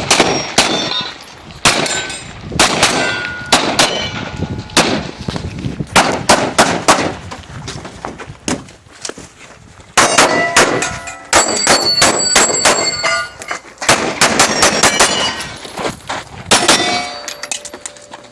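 Rapid strings of pistol shots from a Legion Firearms LFP9, with steel targets clanging and ringing as they are hit. The fire slows briefly a little past the middle, then picks up again in fast strings.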